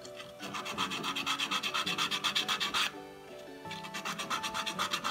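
Fast back-and-forth scrubbing of copper pipe by hand with an abrasive, about eight strokes a second, in two runs with a short pause a little past halfway.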